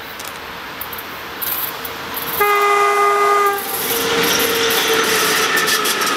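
VL10U electric locomotive's air horn sounding one steady blast of about a second, a little over two seconds in, followed by the rising noise of the approaching train.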